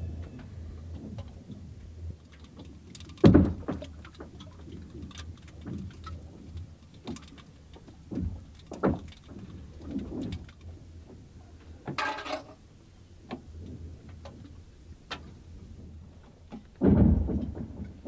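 Spring lake ice cracking and shifting along the shore: scattered pops, knocks and low thuds, with a loud deep boom about three seconds in and another near the end, and a brief higher crackle around the middle.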